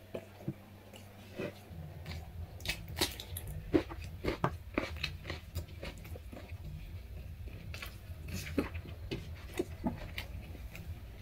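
Close-up eating sounds of a person eating rice and curry by hand: chewing, wet mouth clicks and smacks, busiest a couple of seconds in and again near the end, over a low steady hum.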